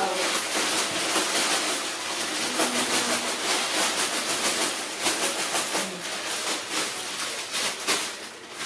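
Clear plastic bags crinkling and rustling as they are handled, a dense run of crackles and rustle throughout.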